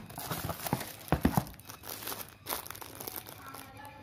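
Plastic wrapping crinkling and rustling as a set-top box is handled in its cardboard box. A few sharper knocks come near the start and about a second in, and the handling grows quieter after two and a half seconds.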